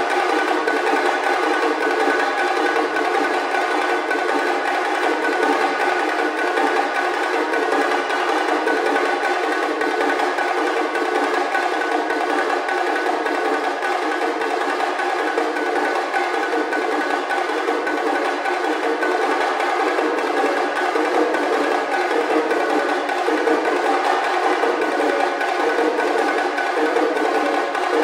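Percussion ensemble of several players sharing one small set of drums, striking it with sticks: a dense, unbroken stream of rapid strokes at a steady loudness.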